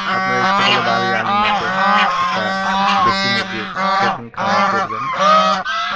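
Domestic white geese honking over and over in a dense, continuous flock chorus, with a brief lull a little past four seconds in.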